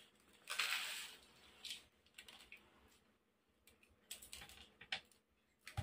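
Finely ground dry corn sliding out of a thick plastic jar into a plastic bowl: a short soft hiss about half a second in, followed by scattered light clicks and taps of plastic as the jar and grinder are handled.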